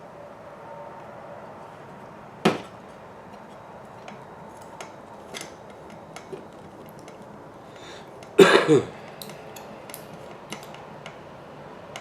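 Small parts and tools being handled on a workbench during an RC kit build: scattered light clicks, a sharp knock about two and a half seconds in, and a louder ringing clatter of a hard object being put down about eight and a half seconds in.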